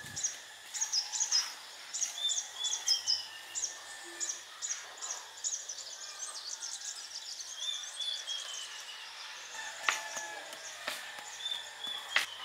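Birds chirping in quick, repeated high notes, with a falling call now and then. Over this come a few sharp knocks from hand work with wooden stakes in the soil, the loudest about ten seconds in and near the end.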